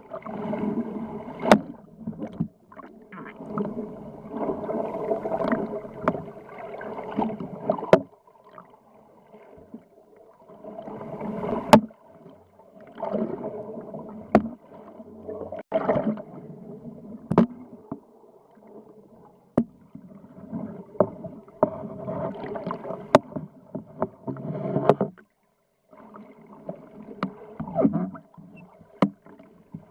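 Underwater sound picked up through a camera housing: a steady hum of several tones, typical of a boat's machinery carried through the water, under surges of rushing water noise that swell and fade every few seconds. Scattered sharp clicks sound now and then.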